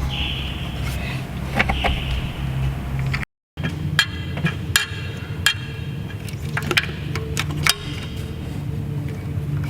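Metal clinks and knocks of hand tools and engine parts as a thermostat housing is worked into place, several sharp ringing taps after about four seconds, over a steady low hum. The sound drops out completely for a moment about three seconds in.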